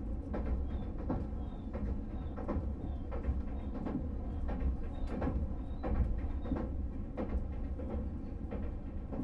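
Tobu 500 series "Revaty" limited express train running, heard from inside the cabin: a steady low rumble with frequent irregular clicks from the wheels on the track.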